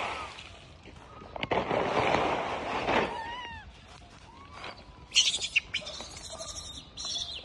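Wild macaques calling: a harsh, noisy cry lasting about a second and a half, a few short arched chirps, then a run of high, sharp squeaks near the end.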